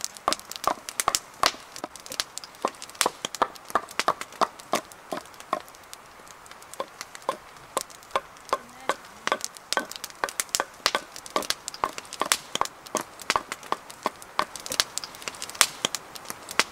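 Hatchet splitting kindling on a log chopping block: a steady run of sharp wooden knocks and cracks, a few a second, as the blade is driven down through the wood.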